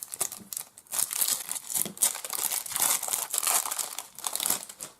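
Foil wrapper of a 2018 Topps Opening Day baseball card pack being torn open and crinkled, with irregular crackling throughout.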